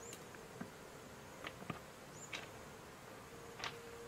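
Loose stones knocking under bare feet walking over a rocky creek bed: a few separate clacks. Under them runs a faint steady hum that grows a little near the end, and a short high chirp comes about every two seconds.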